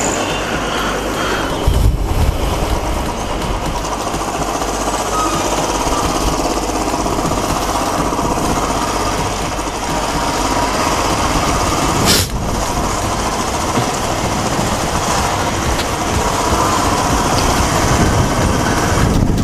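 Motorcycle engine running as the bike rides along, with steady wind and road noise on the rider's camera microphone. A sharp click about twelve seconds in.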